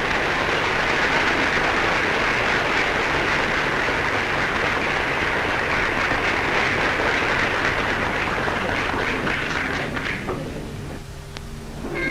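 Audience applauding: dense, steady clapping that starts suddenly and dies away near the end.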